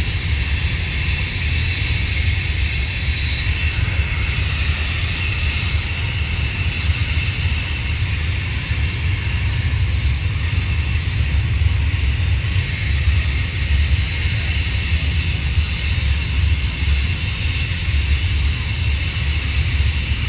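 Steady rumble and hiss of a long train of Herzog ballast hopper cars rolling past on the tracks.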